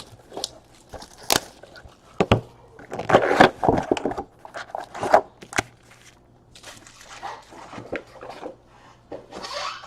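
Trading card box and packs being opened and handled: scattered clicks and rustles, with bursts of crinkling wrapper.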